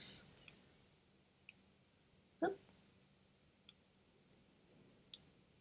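A few faint, sharp computer-mouse clicks, spaced a second or so apart, with one brief soft vocal noise about halfway through.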